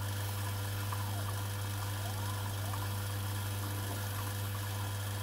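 CNC-converted Emco metal lathe running a cut: a steady motor hum, with the stepper motors on the axes whining in faint glides that rise and fall in pitch as they speed up and slow down.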